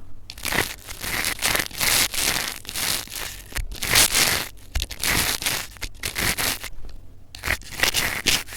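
Fast, irregular crinkling, rustling and scratching close against a TASCAM recorder's microphones, as objects are handled on them.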